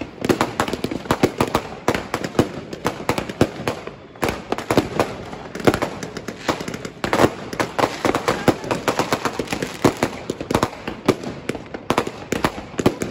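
Fireworks and firecrackers going off in a dense, irregular barrage: many sharp bangs and cracks a second, overlapping without a break.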